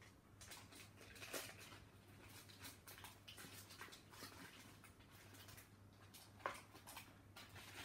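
Near silence with faint clicks and rustles of fingers handling a small action camera, over a low steady hum; two slightly louder clicks, about a second in and after about six seconds.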